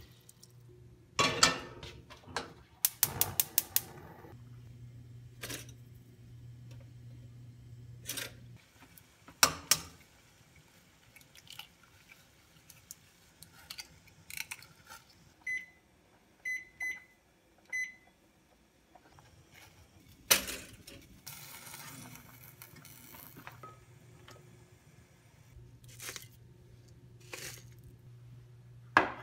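Kitchen sounds of cooking with a stainless steel saucepan: scattered knocks and clatter of the pot and utensils, a quick run of clicks, and stretches of a steady low hum. Four short high beeps come in the middle.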